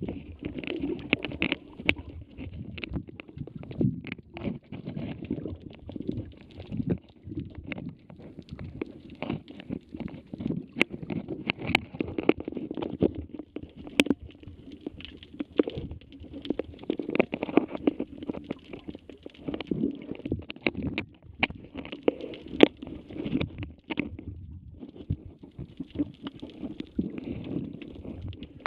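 Muffled underwater sound picked up by a submerged camera while snorkelling: low churning of moving water and bubbles, with many short sharp clicks and crackles scattered through it.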